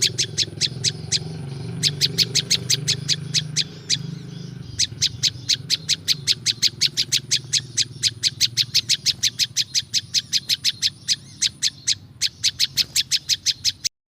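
Prinjak lumut, a small Indonesian songbird, calling in a rapid run of sharp, high chip notes, about four to five a second. There is a brief pause near the middle, and the calls cut off abruptly just before the end.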